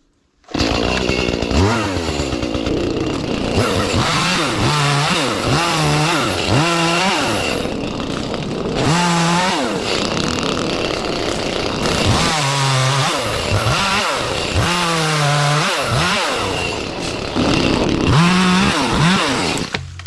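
Gas chainsaw cutting branches, its engine revving up and dropping back over and over as it works through the wood.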